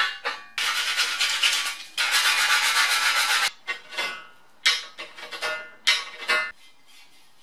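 A steel blade scraping along the cut edge of an aluminium channel in fast continuous strokes, taking off the burr. The scraping stops about three and a half seconds in, followed by a few short scrapes and clicks of metal parts being handled.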